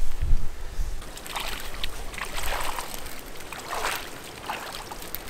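Water splashing and sloshing in short, irregular bursts.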